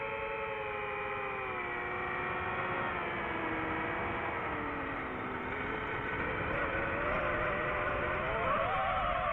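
FPV quadcopter motors whining. The pitch slides slowly down over the first five seconds, then climbs and wavers near the end as the motor speed changes, over a constant rushing noise.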